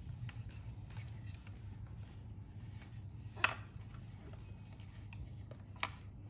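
Hands handling a plastic bear-shaped drinking bottle: faint rubbing and light ticks, with two sharp plastic knocks, the louder one about three and a half seconds in and another near the end, over a low steady hum.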